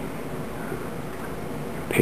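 Steady low background hum and hiss of room tone, with no distinct sound events.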